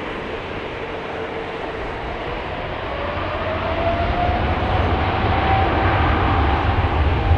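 Airbus A320's twin jet engines running at taxi power. From about three seconds in, the engine whine rises in pitch and the deep rumble grows louder as the aircraft turns toward the microphone.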